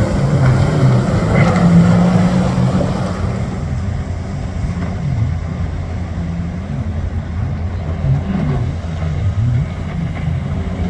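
Sea-Doo RXP 215 jet ski engine running hard while racing, its pitch wavering up and down as the throttle changes. Spray and wind noise over the first few seconds.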